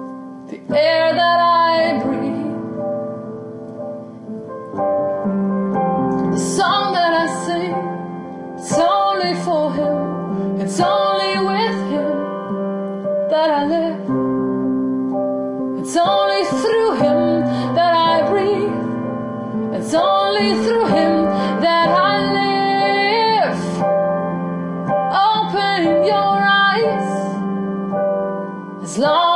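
A woman singing in long, drawn-out phrases over sustained piano chords.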